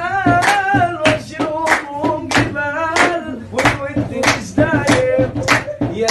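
A male voice singing long, ornamented phrases whose pitch wavers and bends, accompanied by hand claps at a steady beat, a little under two a second.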